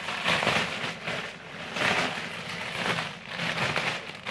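Clear plastic packaging bag crinkling and rustling as it is handled and opened, the noise swelling and fading several times.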